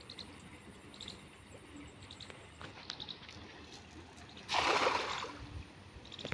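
A thrown cast net hitting the river surface, a single rushing splash of under a second about four and a half seconds in. Faint bird chirps recur in the background.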